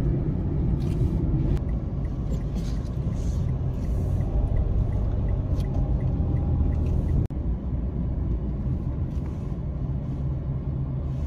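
Steady low rumble of road and engine noise inside a moving car. A faint regular ticking, about two or three a second, runs for a few seconds in the first half, and the sound drops out for an instant about seven seconds in.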